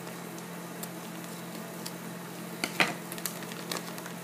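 Scissors snipping open a foil blind bag, with a short burst of crinkling and snips about two-thirds of the way in, over a steady low hum.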